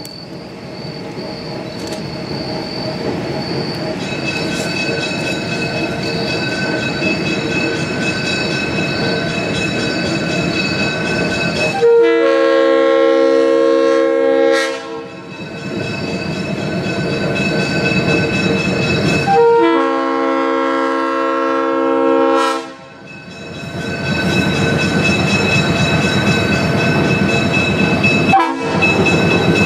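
Diesel locomotive approaching, its engine and wheels growing steadily louder. Its air horn sounds a chord in two long blasts, then a short one and the start of another near the end: the long-long-short-long grade-crossing signal.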